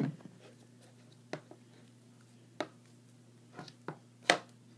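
Hands kneading sticky slime in a plastic bowl: a few scattered short wet clicks and smacks, the loudest near the end, over a faint low hum.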